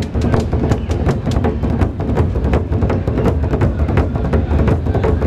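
Percussion ensemble beating drums made from wooden barrels with skin heads: a fast, dense rhythm of loud strikes.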